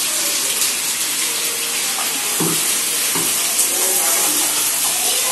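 Ground onion-tomato paste sizzling in hot melted butter in a frying pan as it is poured in and stirred with a wooden spatula, a steady hiss throughout. Two light knocks come about halfway through.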